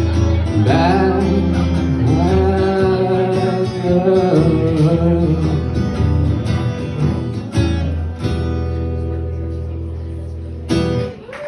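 A man sings with a strummed acoustic guitar, live and unamplified-sounding. Near the end the song closes on a last chord that rings and slowly fades.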